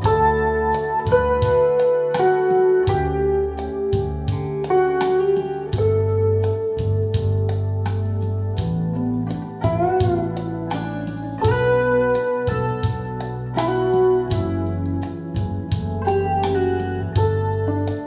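Music played back through a pair of Sound Dynamics RTS-3i bookshelf speakers: an instrumental track with sustained notes over a deep bass line and a steady beat.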